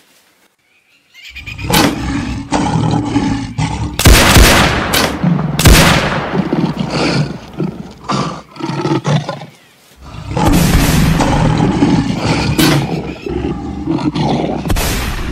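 A lion growling and roaring loudly as it charges, in two long bouts with a short break in between. Two sharp cracks, about a second and a half apart, come during the first bout.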